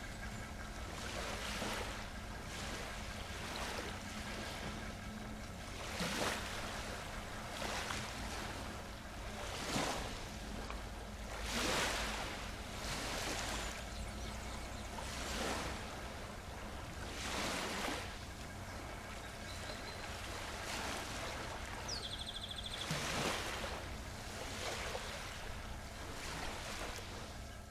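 Sea waves washing in, a surge of surf every second or two over a steady low rumble. A brief high whistle about three-quarters of the way through.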